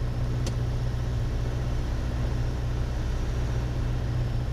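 Piper Warrior's four-cylinder piston engine and propeller droning steadily, heard inside the cabin on final approach, with one short click about half a second in.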